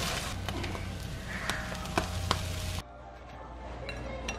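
Scrambled eggs sizzling in a nonstick frying pan, with a spatula scraping and clicking against the pan several times. The sizzle cuts off suddenly about three seconds in, leaving a quieter kitchen with one light tap near the end.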